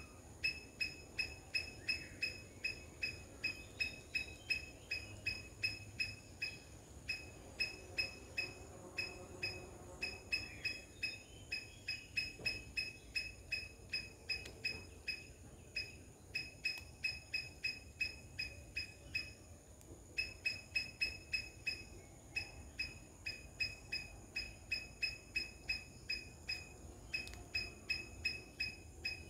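An animal's high, sharp chirping call, repeated about three times a second in long runs with a few brief pauses.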